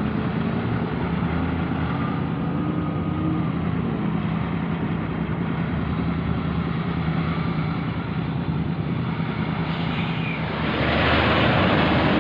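Steady traffic and engine noise with a low droning hum, a few faint rising and falling engine tones in the first seconds, and a louder rush of a vehicle going by near the end.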